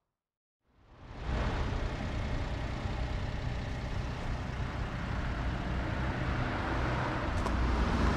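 Steady outdoor road-traffic noise with a low engine rumble, fading in after about a second of silence.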